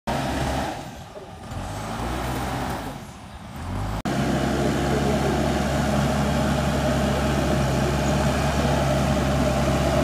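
JCB 3DX backhoe loader's four-cylinder diesel engine working as the front loader bucket pushes soil. Its sound swells and fades twice, then after an abrupt break about four seconds in it runs loud and steady.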